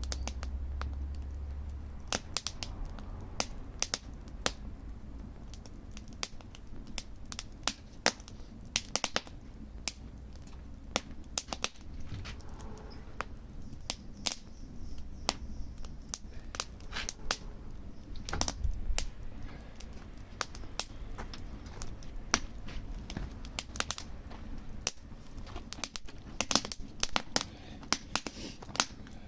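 Wood fire crackling: irregular sharp snaps and pops of burning wood, several a second, over a low steady rumble.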